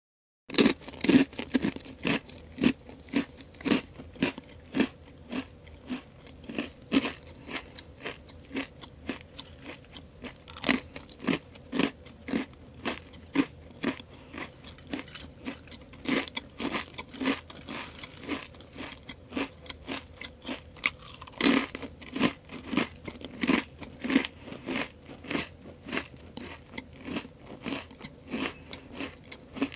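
Crisp potato chips being chewed: a steady run of sharp, dry crunches at about two a second, starting after a moment of silence, with a few louder bites along the way.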